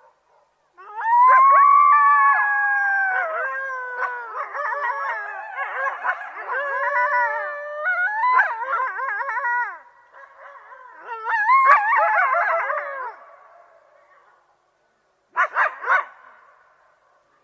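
A group of coyotes howling and yipping together. Several overlapping howls start about a second in and slide down in pitch, then break into rapid wavering yips and warbles. A second burst of yipping follows past the middle, and there is a short flurry of yips near the end.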